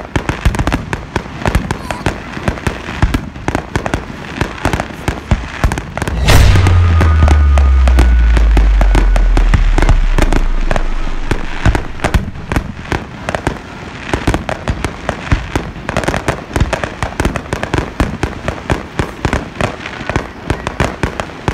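Aerial fireworks going off: a dense, irregular crackle of bursting shells and crackling stars, with one big boom about six seconds in whose low rumble fades over several seconds.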